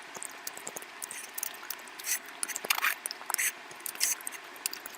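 A person chewing curry close to the microphone, with wet smacking and many quick, irregular mouth clicks.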